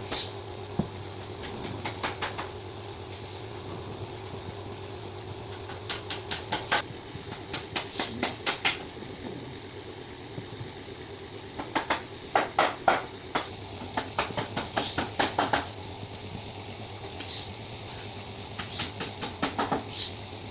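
Quick runs of sharp knocks or clicks, several a second, coming in about five bursts, over a steady low hum.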